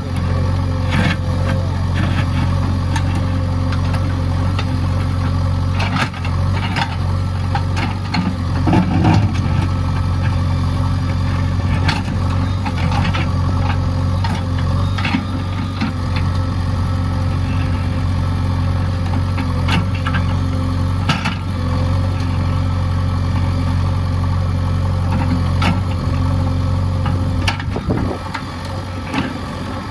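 JCB backhoe loader's diesel engine running steadily, with occasional short knocks over it.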